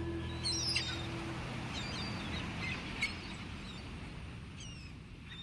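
The song's final held chord dies away in the first second and a half, leaving birds calling in short chirps over a soft wash of outdoor ambience that slowly fades.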